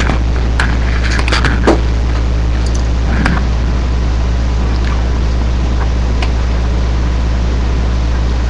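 A steady low electrical-sounding hum, with a few faint crackles and crunches from a cat going at a bag of Doritos, mostly in the first few seconds.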